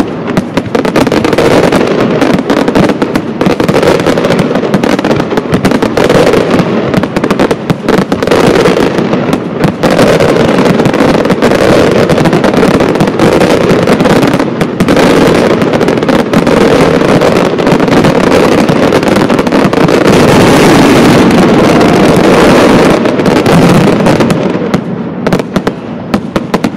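Fireworks display: a dense barrage of aerial shell bursts and crackling, the bangs overlapping almost without a break. It grows loudest toward the end, then thins out in the last few seconds.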